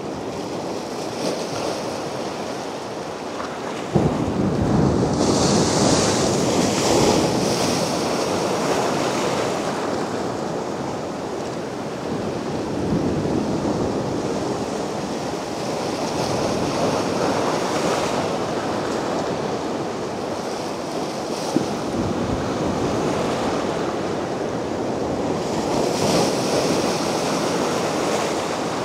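Mediterranean sea waves breaking on a beach and washing up the shore, a steady surf that swells and ebbs. A wave breaks sharply about four seconds in, with a hissing wash after it and again near the end.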